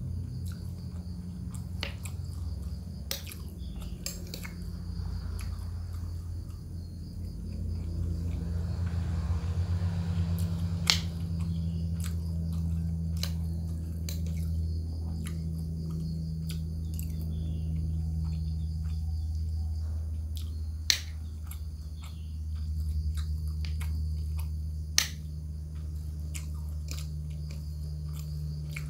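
A person eating rice and bamboo-shoot stew with a metal spoon: chewing, with small clicks and scrapes of the spoon against the bowl, and three sharper clinks spread through. A steady low hum runs underneath.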